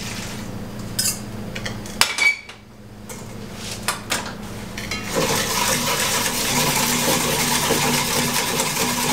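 Hot milk poured from a stainless saucepan into egg yolks in a steel bowl, with a few metal knocks as the pot is handled and set back on the gas burner. From about five seconds in, a wire whisk beats rapidly against the stainless bowl in a steady clatter, tempering the yolks for a crème anglaise.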